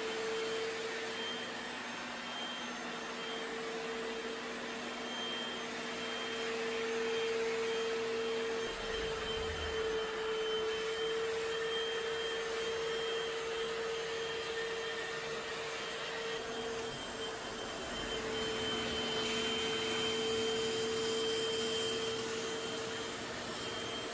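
Hoover FloorMate wet floor scrubber running as it is pushed over a hardwood floor: a steady motor whine over a hiss.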